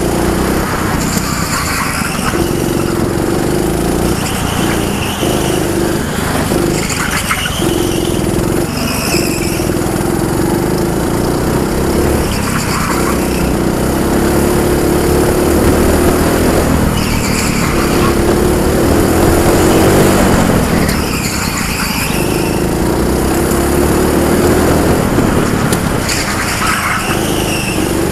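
Junior go-kart engine, heard from onboard the kart, running hard down the straights and dropping away briefly every few seconds as the throttle is lifted for the corners, with short higher-pitched squeals at several of those corners.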